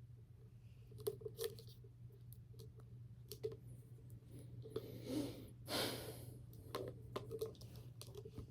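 Hands working at a container whose lid is stuck fast, giving scattered small clicks and knocks. Two short noisy rushes come about five and six seconds in.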